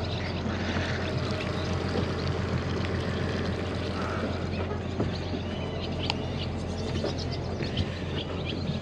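Center-console boat's motor running at idle while cruising slowly through a no-wake channel: a steady low hum with water washing along the hull. A few faint high chirps come through, around the middle and near the end.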